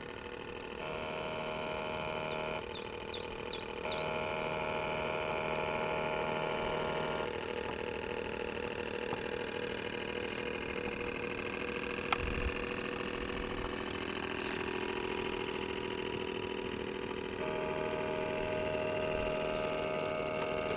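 Drive motor of a radio-controlled model tug running with a steady whine. A stronger, higher-pitched note cuts in and out abruptly three times as the power is switched.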